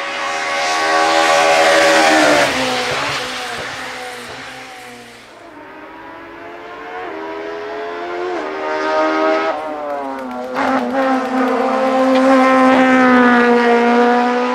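Small hillclimb race car's engine revving hard up the course, loudest as it passes about two seconds in. It then pulls repeatedly through the gears, the pitch climbing and dropping back at each shift, and swells loud again near the end.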